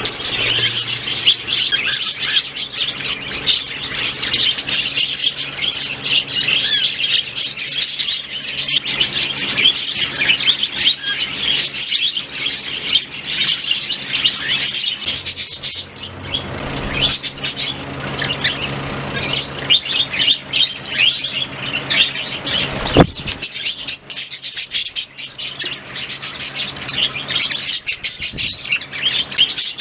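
A flock of budgerigars chirping and chattering continuously in rapid, overlapping calls, with a single sharp click about three-quarters of the way through.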